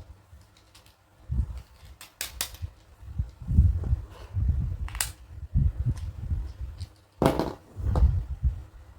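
Plastic toy dentist-kit pieces being handled and unboxed: several sharp clicks and taps among dull low bumps and rubbing.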